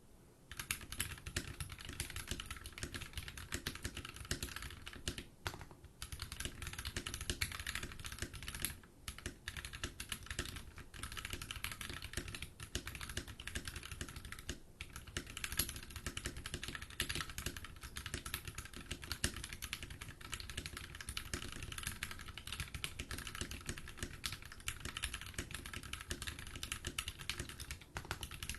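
Steady, fast typing on a Drop Carina mechanical keyboard with lubed linear Gateron Yellow switches, an aluminium plate and cherry-profile keycaps. Rapid keystroke clacks run without a break except for a few short pauses.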